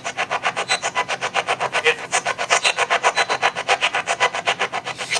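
Spirit box sweeping through radio stations: a rapid, even chop of static and radio fragments, about ten bursts a second.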